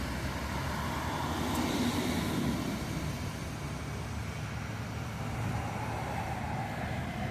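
Steady low rumbling background noise with no distinct events, of the kind made by road traffic or wind.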